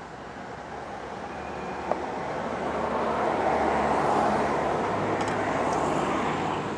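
A motor vehicle passing by: a broad rumble that swells to its loudest about four seconds in and fades near the end. A single knife tap on a plastic cutting board about two seconds in.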